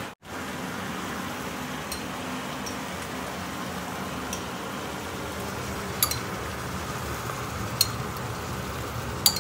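Chunks of pork frying in a pan, a steady sizzle, with a few sharp clinks of a metal spoon against a jar in the second half.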